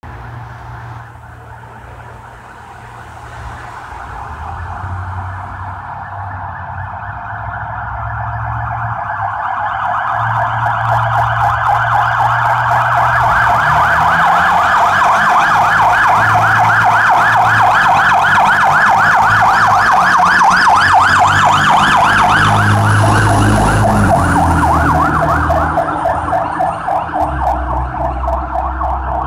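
Fire apparatus siren responding to a call, growing steadily louder, switching to a fast warble, then easing off near the end as it passes, with a low engine rumble beneath.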